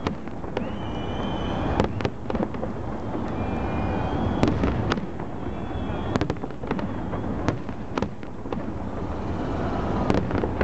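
Aerial fireworks shells bursting in a large display: many sharp bangs, every second or so, over a continuous low rumble.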